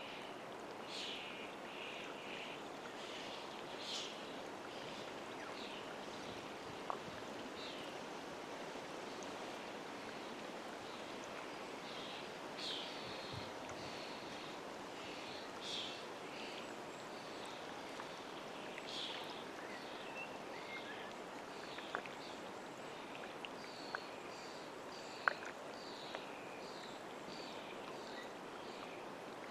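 Lakeside ambience: water lapping steadily at the shore, with birds calling over and over in short high notes and a few sharp clicks.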